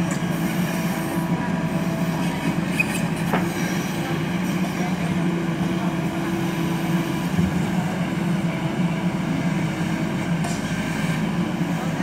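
JCB backhoe loader's diesel engine running steadily under load as the backhoe arm digs a trench, with a steady low hum throughout. A single sharp click comes about three and a half seconds in.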